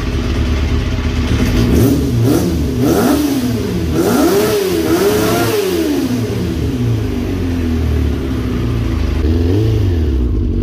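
Kawasaki 400cc four-cylinder motorcycle engine running at idle and being revved with throttle blips. Its pitch rises and falls several times in quick succession, then once more near the end before settling back to idle.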